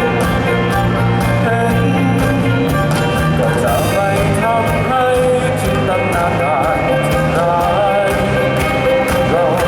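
A band playing a song, with a singing voice over a steady drum beat.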